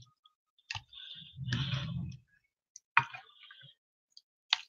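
Raw seasoned cod fillets being rubbed and turned by hand in a glass baking dish, with a soft wet rustle and a few sharp clicks of a utensil knocking against the glass.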